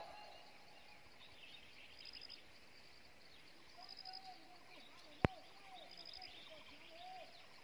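Faint forest ambience: a bird repeats a short, high, pulsed call about every two seconds, with fainter, lower, wavering calls in the middle. A single sharp click comes a little past five seconds in.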